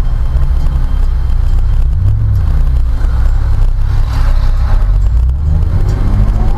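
Car driving in city traffic, heard from inside through a dashcam: a loud, steady low rumble of engine and road noise.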